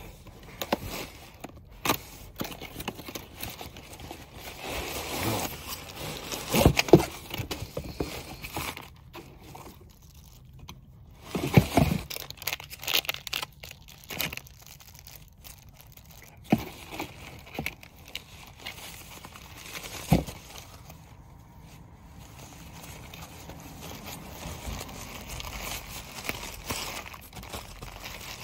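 Handling noise: rustling and crinkling, broken by scattered knocks and clicks, the loudest about seven and twelve seconds in.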